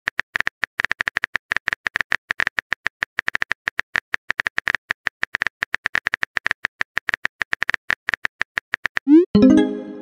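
Phone keyboard typing sound effect: rapid, irregular clicks, several a second. Near the end comes a quick rising swoosh and a short pitched tone as the text message is sent.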